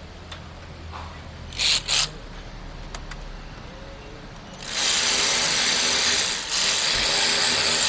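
Power wrench working on the steering rack mounting bolt of a Nissan Navara NP300 during a rack bushing replacement: two short blips, then a long run of about three seconds with a brief break partway through.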